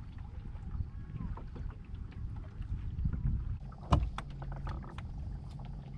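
Small fishing boat on a lake: a low rumble of water and wind against the hull with scattered small clicks. A sharp knock comes about four seconds in, and a steady low hum sets in just after it.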